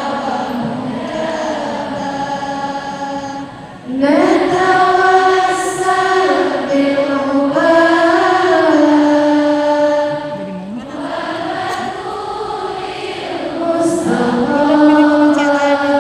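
Unaccompanied vocal chanting of a slow, ornamented melody: long held notes sliding between pitches, with short breaths about 4 and 10 seconds in.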